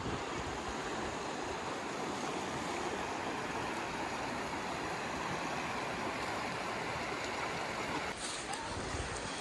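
Shallow, fast mountain river running over a stony bed: a steady rush of water.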